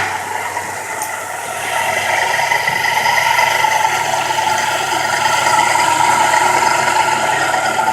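Homemade beehive-frame drilling machine running: a washing-machine motor turning the drill shaft through a flat belt, giving a steady mechanical whir with several steady tones. It dips slightly for about a second near the start.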